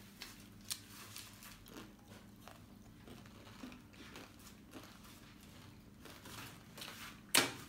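Faint crunching and chewing of a person eating, with scattered small clicks and one sharper click near the end.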